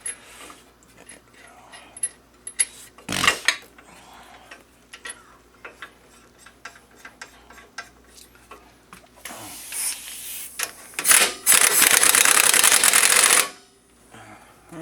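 Metal tools and parts clinking and clicking, then an impact wrench running steadily for about two and a half seconds near the end.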